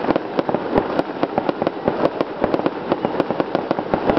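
Fireworks: a rapid, unbroken string of sharp bangs and crackles, several a second, as small aerial shells fire and burst one after another from the same spot.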